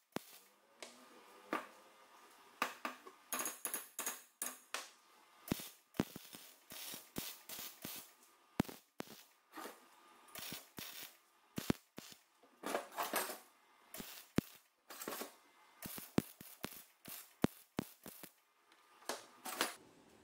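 MIG welder laying a series of tack welds on square metal tubing: short, irregular crackling bursts of the arc, a few lasting close to a second, separated by brief pauses.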